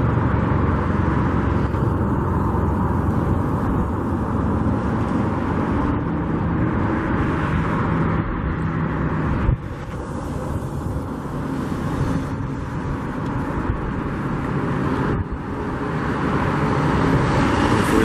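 Steady road traffic noise: vehicle engines and tyres running continuously, with two sudden drops in level, about halfway through and again later.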